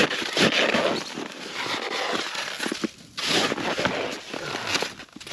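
Snow shovel crunching and scraping into hard-packed snow in two rough bouts, with a short pause about three seconds in.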